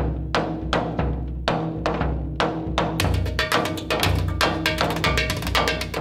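Music with drums over a steady bass line, the drum strikes coming quicker about halfway through.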